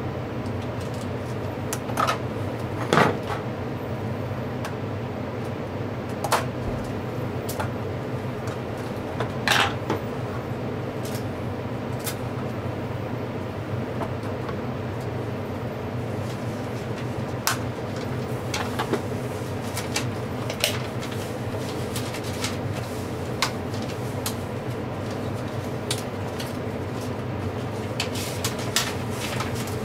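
Irregular sharp clicks and snips of small metal flush cutters worked against the edge of an iPad logic board, over a steady background hum.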